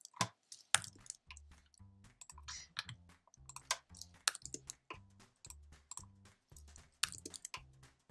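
Irregular clicking and tapping of a computer keyboard and mouse, over quiet background music with a steady repeating bass line.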